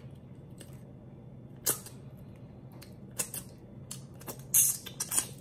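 Close-up eating sounds of someone eating lobster with her fingers: a handful of sharp wet mouth smacks and clicks, the loudest about four and a half seconds in, over a faint low hum.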